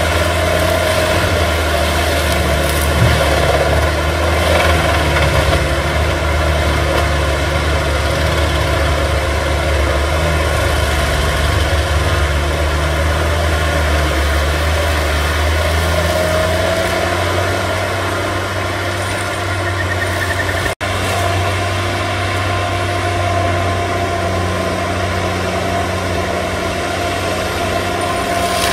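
Tigercat M726E forestry mulcher's diesel engine running steadily under load while its mulching head works through brush: a loud, deep drone with a steady whine above it. The sound drops out for an instant about two-thirds of the way through.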